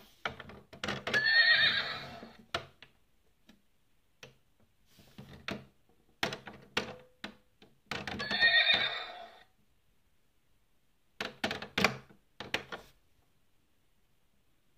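A horse whinnying twice, about a second in and again about eight seconds in, with short knocks like hoof clip-clops between and after the calls.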